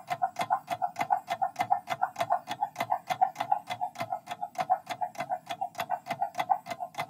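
Quiz countdown timer sound effect: fast, even clock-like ticks, about four to five a second, counting down the time to answer.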